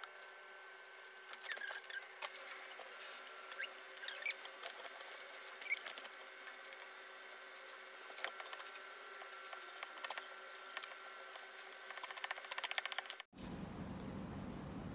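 Small scratchy taps and rustles of a dye applicator being dabbed and brushed over quilted lambskin leather as black leather dye is applied, over a faint steady hum. Near the end the sound cuts abruptly to a steady low rumble.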